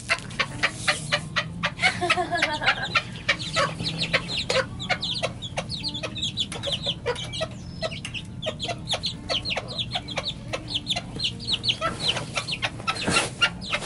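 Bantam chickens clucking and chirping around the feed, a dense run of many short calls several times a second.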